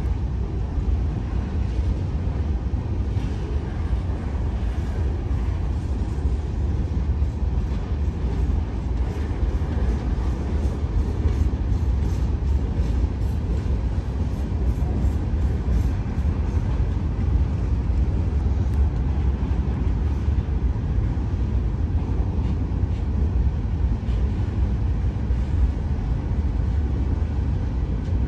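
Freight cars of a very long CSX freight train rolling past, a steady low rumble of steel wheels on rail.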